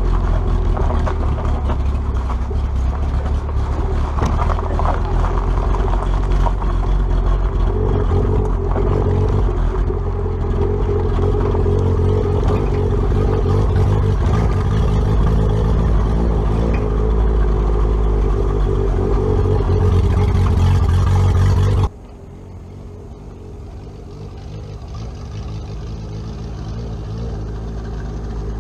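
Toyota Celica being driven on the road, its engine running steadily under a heavy low rumble of engine and road noise. About two-thirds of the way through, the sound cuts off abruptly to a much quieter drone that gradually grows louder.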